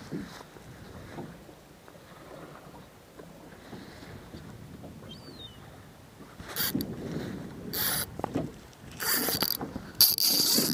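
Choppy water lapping against the hull of a small boat, low and steady at first, then several loud, brief splashes in the last four seconds.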